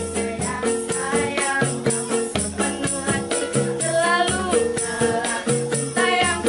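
Live acoustic busking of an Indonesian dangdut pop song: a ukulele is strummed over a steady hand-drum beat with jingling percussion, while several young women sing the melody together.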